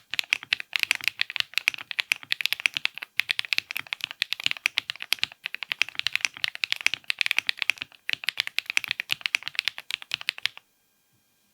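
Fast typing on a mechanical keyboard: a dense run of keystroke clacks that stops abruptly about ten and a half seconds in.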